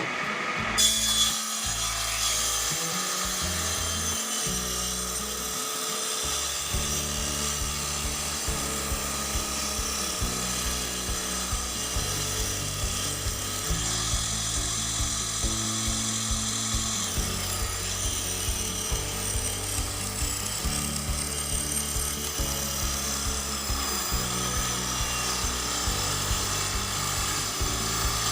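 Homemade table saw's circular blade ripping a piece of wood along the grain, a steady continuous cutting noise. The large-diameter zigzag-toothed blade cuts, but the saw labours somewhat under the load.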